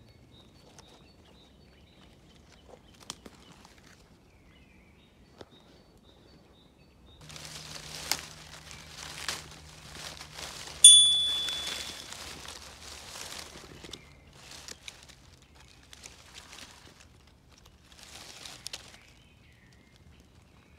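Rustling of dry leaf litter, twigs and undergrowth as someone moves and crouches in the wood, in bursts from about 7 to 14 seconds in and again briefly near the end. About 11 seconds in comes a short, bright ding that rings away over about a second, the loudest sound here, from the on-screen subscribe animation.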